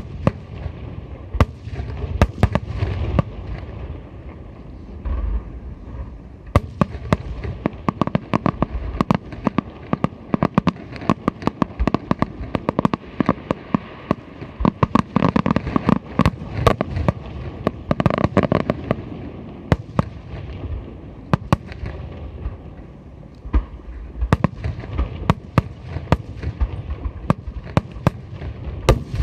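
Aerial fireworks going off in a dense barrage: rapid sharp cracks and pops over deep booms, heaviest through the middle.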